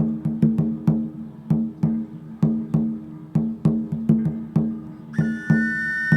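Wooden slit drum struck in a steady rhythm, about three strikes a second, alternating between two low wooden tones. About five seconds in, a high flute-like whistle joins, sounding two close pitches together.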